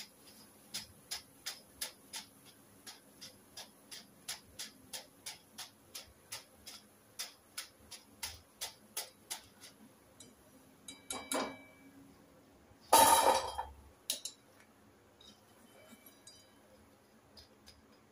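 Wire-mesh spider strainer tapped lightly and over and over against the metal kadai to drain the fried pakodas, about three light ticks a second. This is followed by a louder metal clatter about 13 seconds in.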